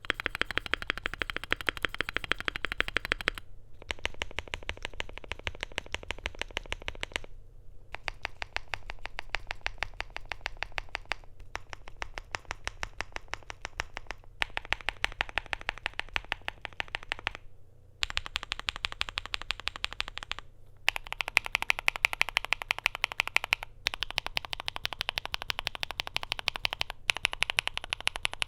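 Fast, continuous typing on a Luminkey80 mechanical keyboard with lubed, filmed Gateron Sylva linear switches, a polycarbonate plate and PBT double-shot keycaps. It gives a dense stream of keystrokes, with a few brief pauses between runs.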